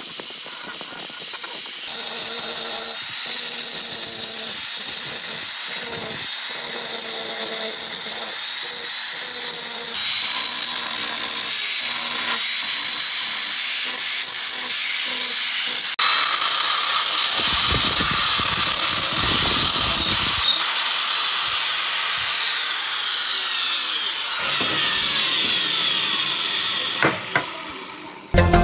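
Angle grinder with an abrasive disc grinding the rusty steel blade of a hand grass-cutting knife: a steady high whine with scraping as the disc works the metal. Over the last few seconds the whine falls in pitch as the grinder winds down.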